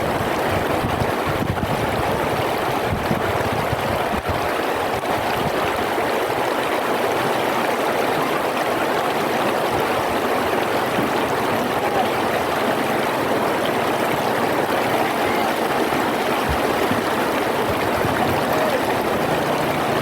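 River water flowing, a steady rushing noise that holds even throughout.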